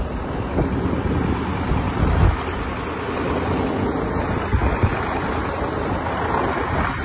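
A KamAZ truck driving through deep snow, its engine and tyres making a steady rumble, mixed with wind noise on the microphone.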